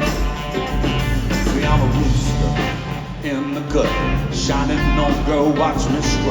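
A live rock band playing, electric guitar lines over bass and drums, with voice-like bending notes in the mix.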